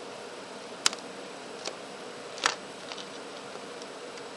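Sharp plastic and metal clicks from a mobile phone's casing being handled and pried apart by hand. Two loud clicks come about a second in and about two and a half seconds in, with a softer one between and a few light ticks after, over a steady background hiss with a faint hum.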